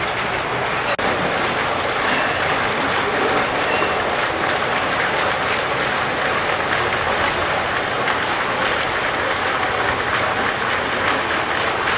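Small fountain jets splashing steadily into a pond, an even hiss of falling water, with a brief break about a second in.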